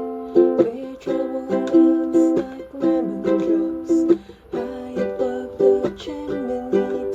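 Ukulele strummed in chords, several strums a second, the chord changing every second or so, with a brief let-up about four seconds in.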